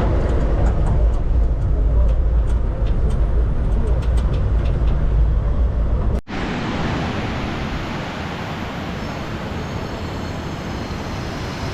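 A road vehicle in motion, heavy low engine and road noise with a few light rattles. About six seconds in it cuts to the steady rushing of a waterfall.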